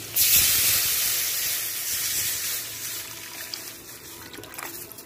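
Tamarind-and-spice liquid poured into hot sesame oil with garlic and shallots frying in a metal pan: a sudden loud sizzling hiss that starts a fraction of a second in and dies down gradually over the next few seconds.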